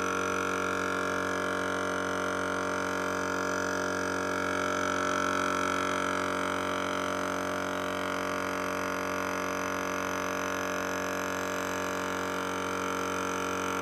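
EZ Flate M.O.A.B. dual-cylinder air compressor running steadily while it inflates the tires through its hoses: an even, unbroken drone that holds one pitch throughout.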